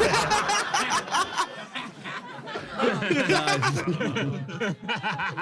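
People laughing: an audience laughing at a joke, with a man chuckling over it.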